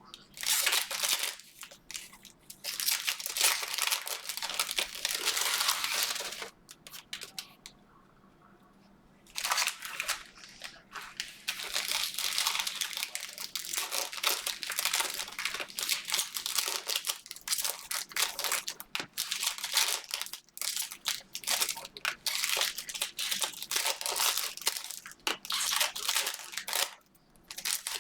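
Plastic-foil trading card pack wrappers crinkling and tearing as packs are ripped open and handled, in a dense run of crackles with a near-silent pause of about two seconds near a third of the way in.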